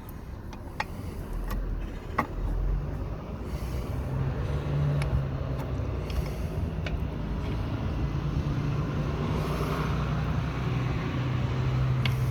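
A steady low engine hum that builds up over the first few seconds and then holds, with a few light clicks of brake pad and caliper parts being handled.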